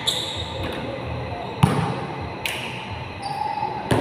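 Basketball bouncing on a gym court: a few sharp, irregularly spaced thuds, the loudest about a second and a half in, each echoing in the large hall.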